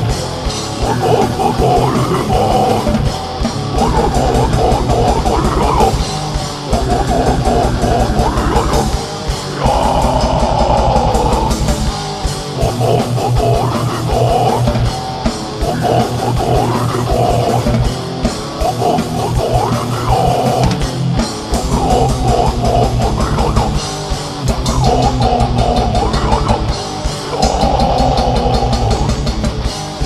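Heavy metal band playing loudly: electric guitar, bass guitar and drum kit.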